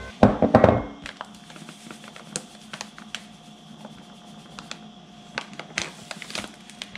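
Kitchen bowl and utensils being handled while dough ingredients go into the bowl: a louder clatter in the first second, then scattered light clicks and taps, over a faint steady hum.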